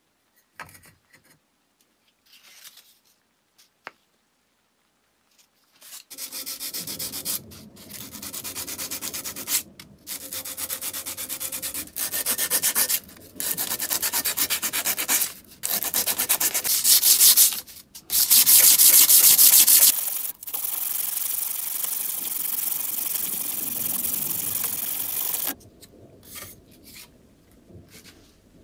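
Sandpaper rubbed by hand over the ribbed brass body of an antique blowtorch burner. A few faint handling knocks come first, then about six seconds in the sanding starts: continuous rubbing strokes with short pauses, loudest a little past the middle, stopping a few seconds before the end.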